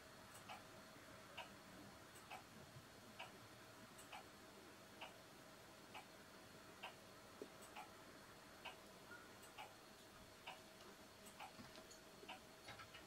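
Faint, even ticking of a clock, about one tick a second, over a quiet room's low steady hum.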